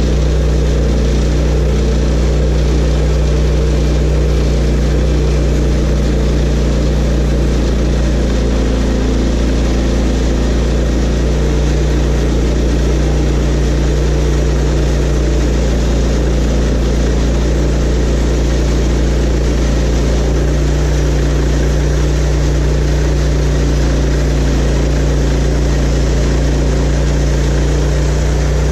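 Portable band sawmill running steadily, its engine holding a constant low hum.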